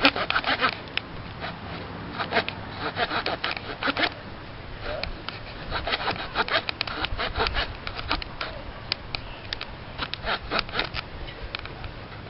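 Small folding pocketknife saw blade of a GEC Lumberjack cutting into a log with short, quick back-and-forth strokes in bursts, with brief pauses between them. The saw is making poor headway through the wood.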